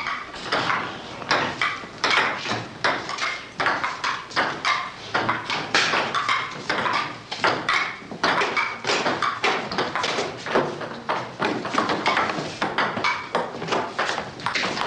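Table-tennis balls clicking off paddles and tables in a quick, irregular run of light, sharp ticks, with more than one rally going at once.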